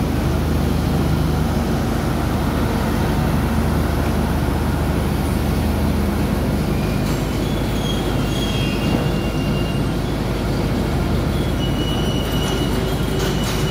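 Indian-built passenger coaches of a long night mail train rolling slowly into a station, their wheels rumbling steadily on the rails. Brief high-pitched wheel squeals come about halfway through and again near the end.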